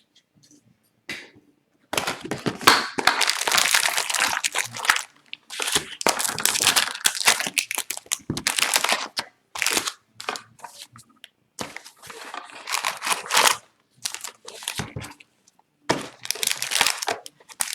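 Packaging of a sealed trading-card box being torn open and crumpled by hand: crinkling and crackling in bursts, starting about two seconds in and going on with short pauses.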